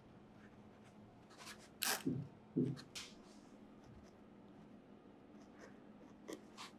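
Soft scratchy rustles and light taps of a barbed felting needle and fingers working wool fibres on a foam felting pad: a cluster of short scratches about one and a half to three seconds in, and two more near the end.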